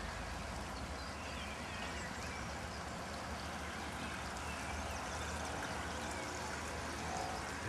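Steady rush of flowing floodwater from a swollen river, with a few faint bird chirps.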